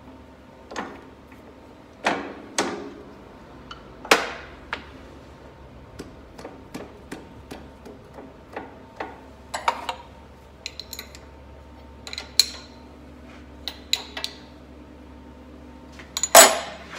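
Metal-on-metal clinks and knocks as the center drill is taken out of a lathe's Jacobs drill chuck and a twist drill bit is fitted in its place. The taps are sharp, briefly ringing and irregular, with the loudest near the end, over a faint steady hum.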